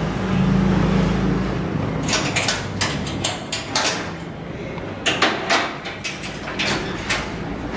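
Metal security grille gate clanking and rattling as it is unlocked and swung open: two runs of sharp metallic clicks and clacks, after a low rumble in the first second or so.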